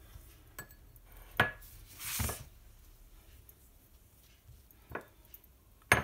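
Hand patting and pressing soft dough balls flat on a serving tray: a few sharp taps against the tray, a loud one at the end, and a short soft brushing sound just after two seconds.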